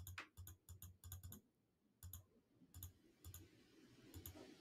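Faint computer mouse clicks in a quick, irregular run of about three a second, stepping a video player forward.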